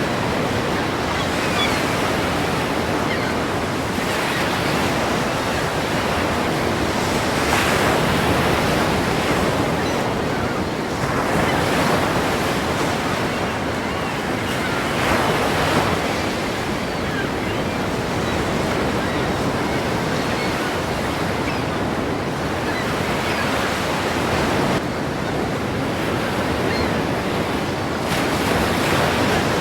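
Ocean surf breaking continuously, the roar swelling with each wave every few seconds.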